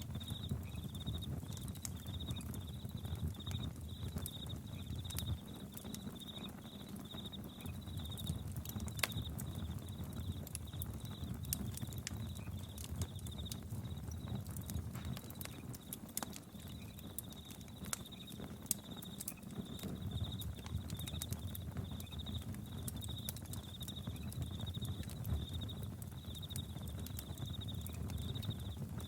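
Campfire crackling with scattered sharp pops, over crickets chirping in a steady pulsing trill and a dense low knocking chorus of frogs. The low knocking thins out twice, around five seconds in and again just before twenty seconds.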